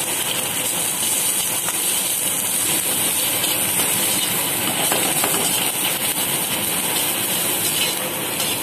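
Chicken and vegetables sizzling and steaming in a wok over a high-flame gas burner: a steady, loud hiss.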